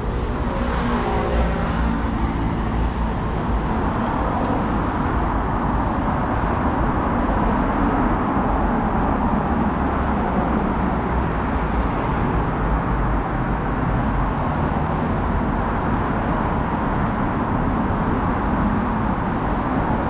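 Steady rumble of vehicle noise, with a tone falling in pitch during the first few seconds.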